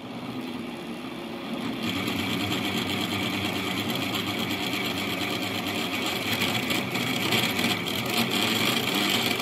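A Betar household water meter whirring loudly as water rushes through it to fill a water heater, its impeller spinning fast. The noise grows louder about two seconds in. The owner takes such a racket for a sign that the new meter will not last long.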